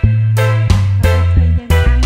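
Background music with a steady beat of about three strikes a second over a deep, held bass line.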